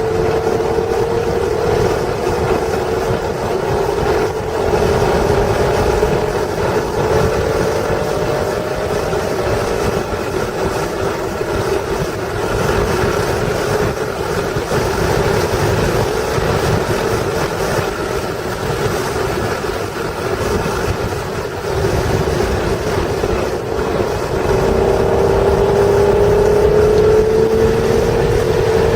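A 1996 Acura NSX's stock 3.0-litre V6 pulling through a lap at track speed. The engine note climbs at first, drops slowly through the middle as the car comes off the throttle, and climbs again under acceleration in the last few seconds, over a steady rush of wind and road noise.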